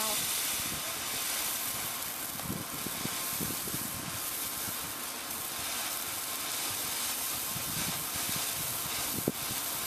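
Ground fountain fireworks hissing steadily as they spray sparks, with a single sharp pop a little after nine seconds in.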